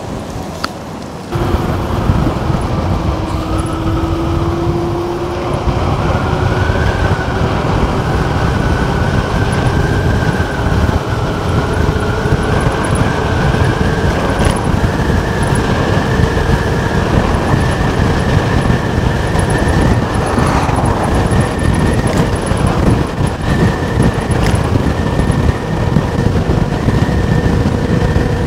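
Electric moped's motor whining and rising slowly in pitch as it speeds up toward top speed, under a heavy rumble of wind and road noise on the microphone. The rumble jumps louder about a second in.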